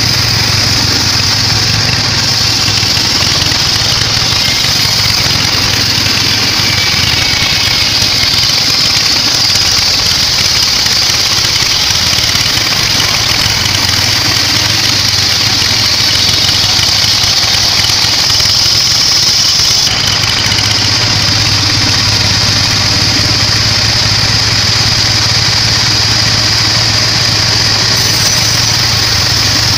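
Sawmill bandsaw running steadily and loudly as it saws through a weru log, a continuous machine drone with a low hum beneath a high hiss.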